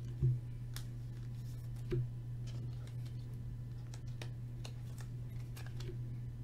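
Faint clicks and light knocks of trading cards being handled and turned over in the hands, with two small knocks, about a quarter second in and about two seconds in, over a steady low hum.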